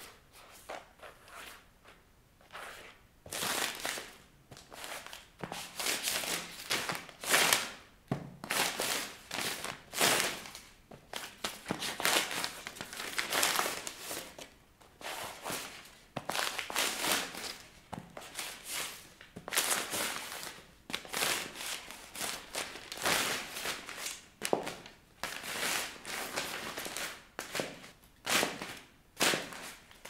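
Spiral-notebook paper ripping and crumpling under high-heeled pumps, a long series of tears and scrapes that starts a few seconds in, mixed with heel taps on a tile floor.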